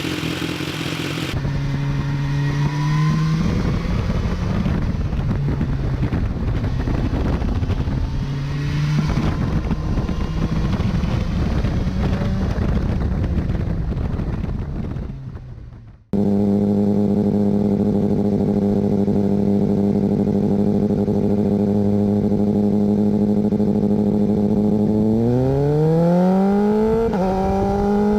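BMW S1000R inline-four engine through a titanium slip-on exhaust, its revs rising and falling. After a sudden cut about halfway, it runs at a steady idle and then revs up near the end.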